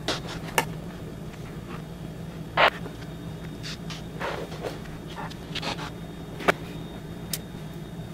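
Small kitchen handling sounds while pancake batter is poured onto a griddle and chocolate chips are dropped on: a few scattered clicks and knocks, the loudest about two and a half seconds in, over a steady low hum.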